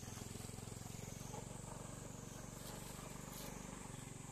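A low, steady engine drone of rapid even pulses, easing slightly near the end, with a steady high insect drone behind it.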